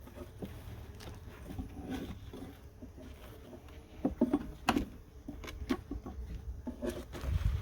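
Irregular clicks, taps and rustling of something being handled, loudest in a cluster about four to five seconds in, over a steady low rumble.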